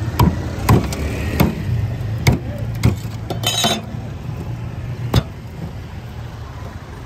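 A heavy cleaver chopping a slab of block ice: five sharp strikes in the first three seconds, a short crunching scrape about three and a half seconds in, and one more knock about five seconds in. A steady low hum runs underneath.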